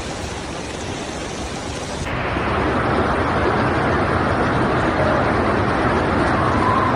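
Loud, steady rushing noise of a rainstorm and running water. It changes abruptly about two seconds in and is louder after.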